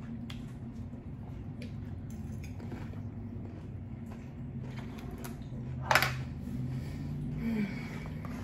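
A person eating hard-shell tacos: small clicks and mouth noises over a steady low hum, with one sharp, loud crack about six seconds in.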